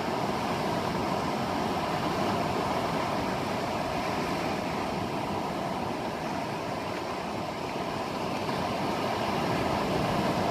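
Steady rushing noise of surf and wind at the beach, heard through a phone's microphone, with gentle swells in level and no distinct events.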